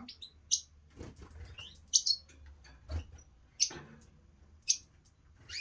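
Caged canaries and finches chirping: a handful of short, high call notes spaced about a second apart.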